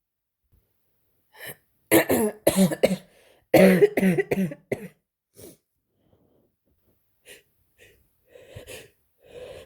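A person with a head cold coughing in two short fits of three or four coughs each, about two and four seconds in. Quieter short breaths follow.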